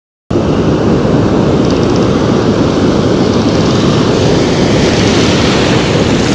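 Loud, steady roar of ocean surf washing around the angler, with wind rumbling on the camera microphone; it cuts in suddenly just after the start.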